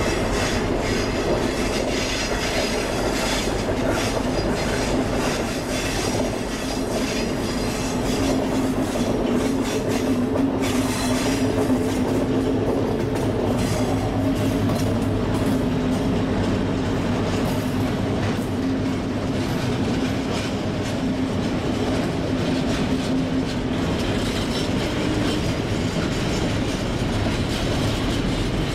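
Class 60 diesel-electric locomotive, with its Mirrlees eight-cylinder engine, passing at steady speed, its engine note strongest about halfway through. A long train of bogie tank wagons follows, wheels clicking over rail joints and pointwork, with a high wheel squeal at times.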